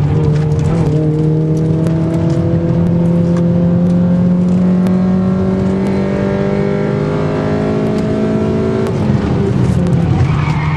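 Honda VTEC engine heard from inside the cabin, pulling steadily under acceleration with its pitch climbing slowly for about eight seconds, then dropping about nine seconds in. Road and wind noise run underneath.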